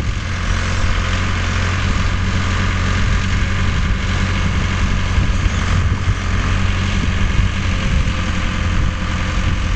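Enfly DQ404 tractor's diesel engine running steadily at an even speed.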